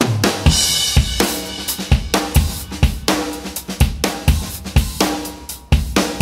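Background music with a steady drum-kit beat of about two strikes a second, starting abruptly.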